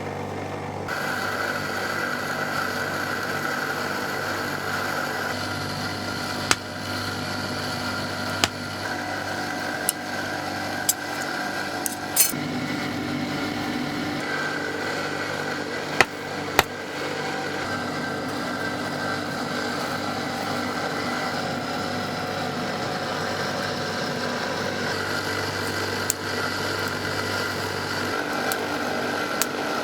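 A steady mechanical hum from a small motor, with about eight sharp knocks at irregular moments through it.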